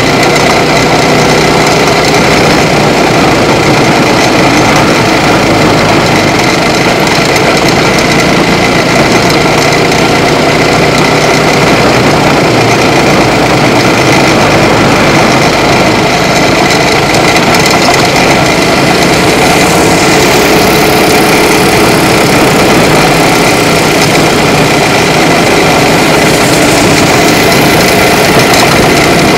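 Small racing kart engine running at speed, heard close up from on board the kart. It is loud and continuous, with its pitch rising and falling gently as the kart goes down the straight and through the corners.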